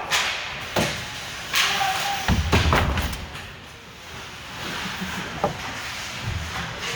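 Ice hockey play in an echoing arena: a series of sharp knocks and bangs from puck, sticks and players hitting the rink boards. The loudest is a cluster with a deep booming thud about two and a half seconds in.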